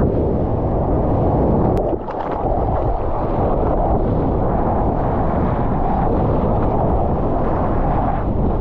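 Rushing water and wind buffeting on a GoPro's microphone while surfing a wave: a loud, steady, muffled rumble that dips briefly about two seconds in.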